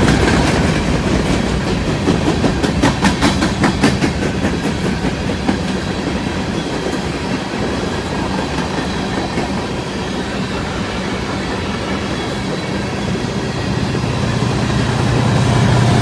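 Empty aluminum coal hopper cars of a freight train rolling past, with wheels clicking over rail joints and a cluster of knocks a few seconds in. Near the end the steady low running of an approaching BNSF diesel locomotive grows louder.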